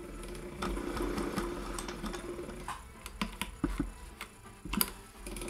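Singer 404 sewing machine, running on a swapped-in Golden Touch & Sew 620 motor set to slow, stitching through three layers of denim with a steady hum. About halfway in the hum drops away and a few sharp clicks and knocks follow, then the machine runs again briefly near the end.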